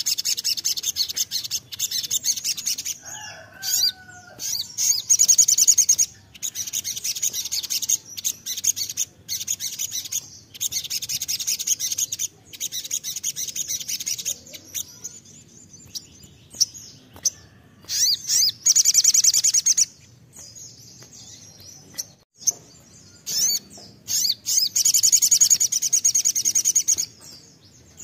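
Male olive-backed sunbird singing its rapid, high-pitched trilling 'nembak' song in runs of a few seconds each, separated by short pauses.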